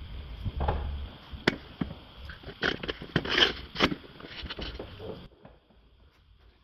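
Irregular clicks, taps and light scrapes of hands and a tool working under the car, stopping abruptly about five seconds in.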